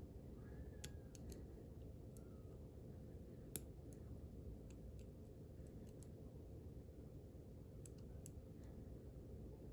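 Faint, scattered clicks of a lock pick and tension wrench working the pins of a five-pin brass padlock core, with one sharper click about three and a half seconds in, over low steady background noise.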